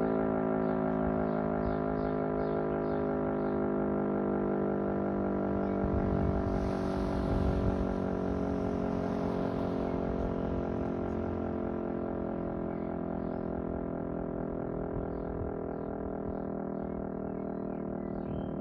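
E57 electromechanical siren sounding a steady, unbroken tone with no rise or fall in pitch, easing off slightly near the end. A brief rush of hiss passes over it about six to ten seconds in.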